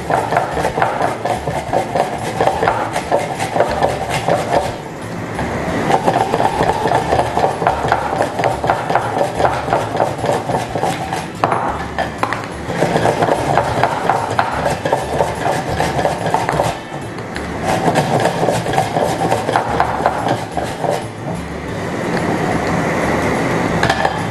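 An onion being grated on a metal hand grater: quick, rhythmic rasping strokes that stop briefly a few times.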